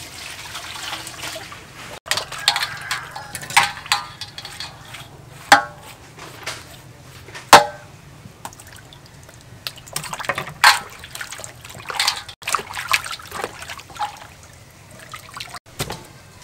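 Water poured and splashing over a raw cow leg in a stainless steel bowl as it is washed, with many sharp knocks and splashes from handling the meat in the bowl; the two loudest, about five and a half and seven and a half seconds in, ring briefly like struck metal.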